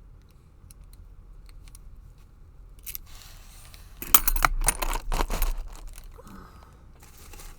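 Metal padlocks and keys being handled: a few light clicks, then a burst of clinks and knocks lasting about a second and a half, starting about four seconds in.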